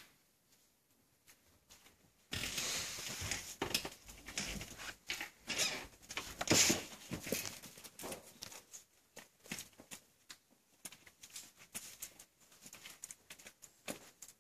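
Rustling and handling noise on the recording device's microphone as it is moved, setting in suddenly about two seconds in and thinning after the middle into scattered clicks and rubs.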